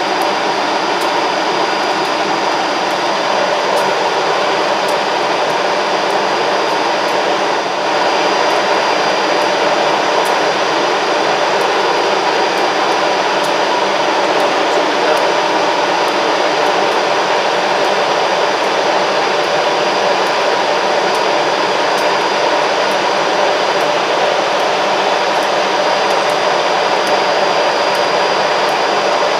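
CC 203 diesel-electric locomotive standing with its engine and cooling fans running, a steady loud whirring hum.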